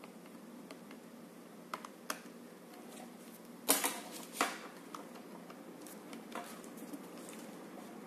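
A metal USB plug clicking and scraping against a laptop's USB port as it is pushed in and drawn back out. The sound is a few scattered clicks, with a sharp, loudest cluster of clicks and knocks about halfway through.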